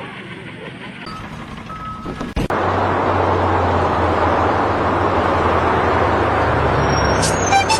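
A vehicle engine running steadily with a low hum under loud rushing noise, starting abruptly about two and a half seconds in after a quieter stretch.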